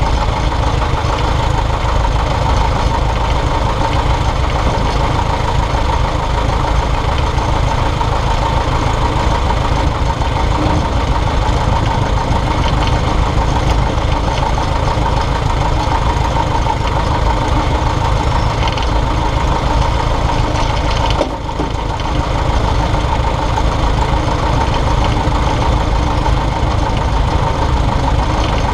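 Piper Cub's propeller engine running steadily at low power on the ground, dipping briefly about two-thirds of the way through.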